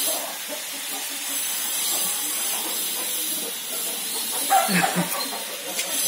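Steady hiss, with a brief voice-like sound about four and a half seconds in and a single click just before the end.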